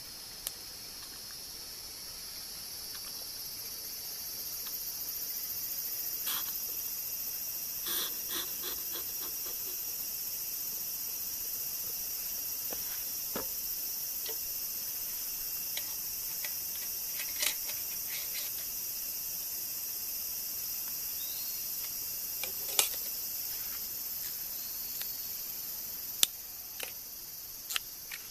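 Insects chirring in a steady, high-pitched chorus that swells a few seconds in, with scattered sharp clicks and knocks over it.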